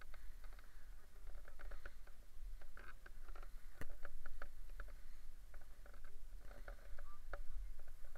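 Nylon fabric of an Edel Space Classic paraglider wing rustling and crinkling in short, irregular crackles as the canopy is gathered up, with a sharper click about four seconds in.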